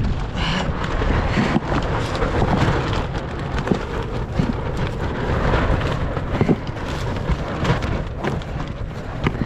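Wind buffeting the microphone: a loud, uneven rumble with gusts.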